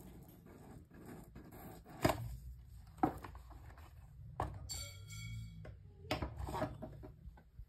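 A cardboard AirPods Pro box being handled, with several sharp taps and knocks. There is a brief squeak about five seconds in, and a cluster of taps as the box is set down on a wooden table near the end.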